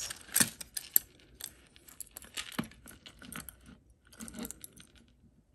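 A boxed costume-jewelry necklace being handled: a quick, irregular run of small clicks, taps and light rattles from the box and the piece, louder in the first few seconds and thinning to faint ticks.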